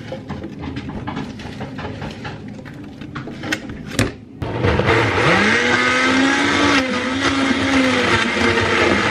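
Countertop blender: a few clicks as spinach is loaded into the jar, then about four and a half seconds in the motor starts, rising in pitch as it spins up, and runs steadily, blending the spinach.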